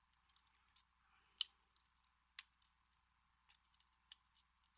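Faint, irregular metallic clicks of a lock pick working the pin tumblers of an American Lock Series 200 padlock, the sharpest about a second and a half in.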